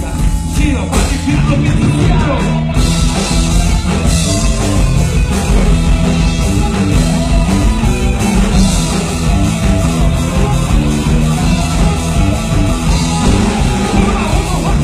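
Live rock band playing loud, with electric guitars, bass and a drum kit; the cymbals come in strongly about three seconds in.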